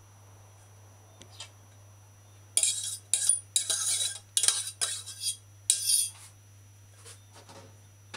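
A metal spoon scraping and knocking against the inside of a stainless steel saucepan as boiled mixed vegetables are scraped out into a bowl: about six sharp clattering strokes over three or four seconds, starting a little before the middle.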